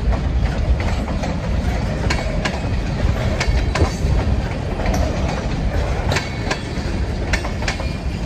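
Freight train's boxcars rolling past close by: a steady low rumble, with the wheels clacking over rail joints at an uneven pace, every half second to a second.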